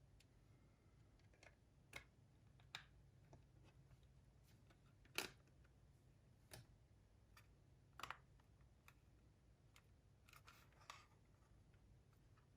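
Faint, scattered clicks and taps, a second or more apart, of a cassette walkman's small plastic casing parts being handled and fitted together, over a faint low hum.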